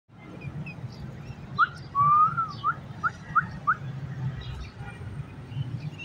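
A run of short whistled notes, each rising quickly in pitch, with one longer wavering note about two seconds in.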